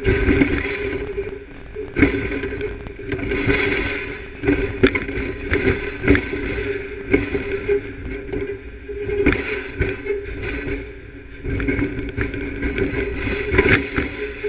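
Steady hum of an electron beam irradiator's machinery and conveyor, with irregular knocks and clicks scattered through it.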